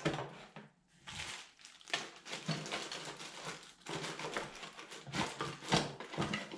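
Kit parts and plastic packaging being handled and sorted out of the box: a busy run of uneven rustling, crinkling and small plastic clicks and knocks, with a few sharper knocks about a second in, near two seconds and near the end.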